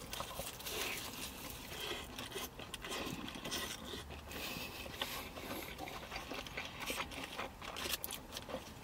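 Close-miked chewing and biting of burgers, with scattered soft crunches and clicks as a sweet-and-spicy crispy fried chicken burger is bitten into and chewed.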